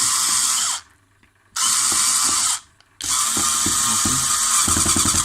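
Small electric screwdriver running in three bursts, the last and longest with a fast rattle near its end, as it works a terminal screw on a stove's power-cord connection block.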